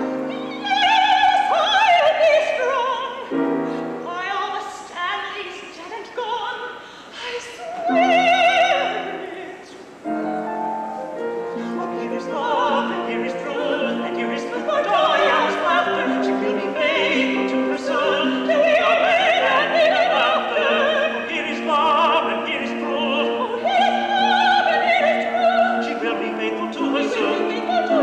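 Soprano and tenor singing a light-opera duet with vibrato over piano accompaniment, the two voices in turn and together. The soprano is heard first; the sound becomes fuller and continuous from about ten seconds in.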